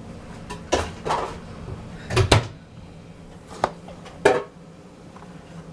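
Several sharp knocks and taps of kitchenware handled on a countertop, two in quick succession a little after two seconds in, over a low steady hum.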